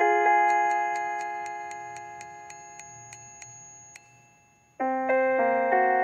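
Computer-generated sonification of a Mandelbrot-variation zoom, its pitches set by the middle pixel of the image: a chord of synthesized notes holds and slowly fades over a fast high ticking about four times a second. The sound dies to near silence about four and a half seconds in, then a new, fuller chord starts.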